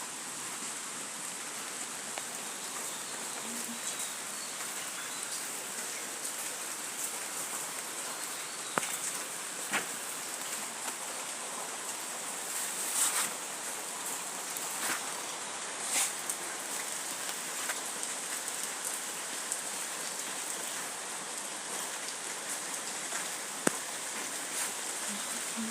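Steady rain falling, an even hiss with a few sharper drops landing close by at scattered moments.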